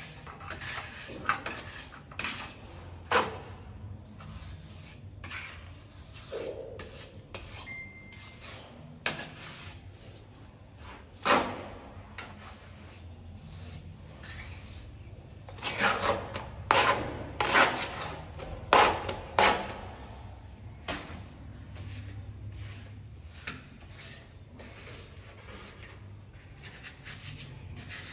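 Hand tools scraping and knocking on brick and mortar: irregular rubbing scrapes with scattered sharp knocks, and a run of louder strokes a little past halfway.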